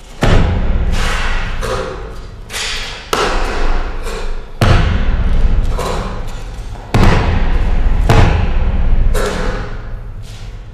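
Heavy thumps of foot stamps and forceful strikes in a Chen-style taiji cannon fist form, about ten at an irregular pace, each ringing on in a large bare hall. The loudest fall at the very start, about halfway through and about two-thirds in.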